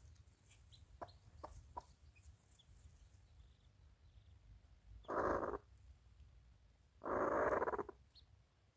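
A domestic animal makes two short, rough, buzzing calls, a brief one about five seconds in and a longer one about two seconds later, with a few faint clicks before them.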